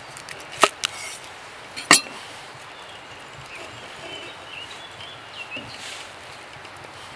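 Three sharp knocks in the first two seconds, the last the loudest, against a steady outdoor background, with a few faint high chirps later on.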